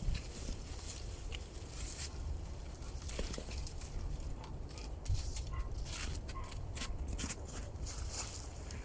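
Dry reed stalks rustling and crackling in irregular short bursts as they are handled.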